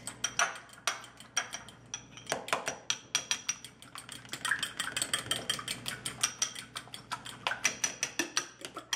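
A metal spoon beating eggs in a small glass bowl, clinking rapidly against the glass as the yolks are broken and mixed.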